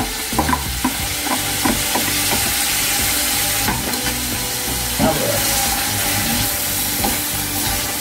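Pork and carrot strips sizzling in hot oil in a metal pan, with a metal spatula scraping and knocking against the pan as they are stirred. The knocks come most often in the first couple of seconds, as the carrots are tipped in, then every second or two over a steady sizzle.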